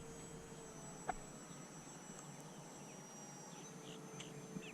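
Faint open-field ambience: a steady high-pitched insect buzz, with the hum of a distant electric-powered RC plane in flight that fades out about a second in and comes back near the end. A single faint click about a second in.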